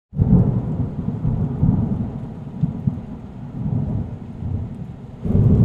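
Low rumbling thunder sound effect: loud at the start, fading away, then swelling again about five seconds in.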